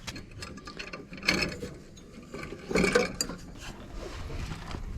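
Ratchet wrench clicking in two short spells, about a second in and around three seconds in, as the mower deck bolts are tightened.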